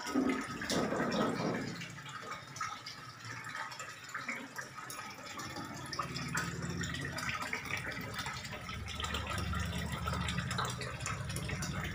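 Water bubbling and trickling in a fish tank from its aeration and filter, with a low hum coming in about halfway through.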